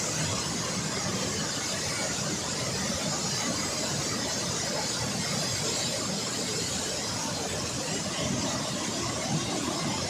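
Water rushing out through the open gates of a dam spillway: a steady, unbroken rush.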